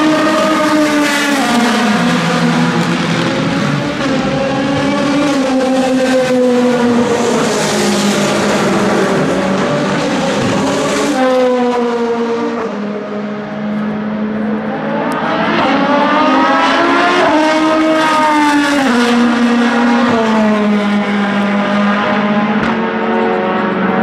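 Vanwall Vandervell 680 hypercar's naturally aspirated Gibson 4.5-litre V8 at racing speed, its note climbing and dropping in steps through gear changes as it brakes and accelerates. About thirteen seconds in it dips briefly, then rises in a long pull before stepping down through upshifts.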